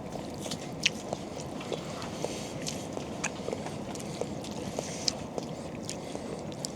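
People eating noodles: scattered small clicks and taps of utensils and chewing, about one or two a second, over a steady low background noise.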